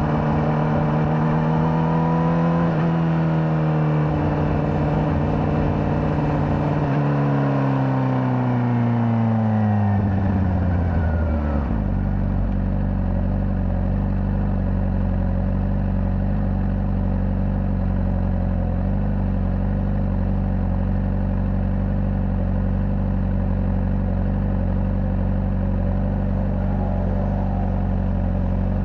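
Honda CBR600RR inline-four running at a steady speed, its pitch stepping down twice and then falling steadily as the bike slows. About twelve seconds in it settles into a steady low idle through the stock exhaust.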